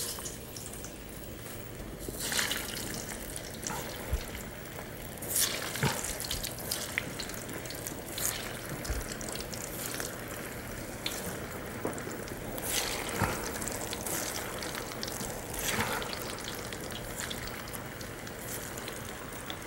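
Cauliflower kofta balls deep-frying in hot ghee: a steady sizzle with louder bursts of spitting and crackling every few seconds as more balls go into the fat.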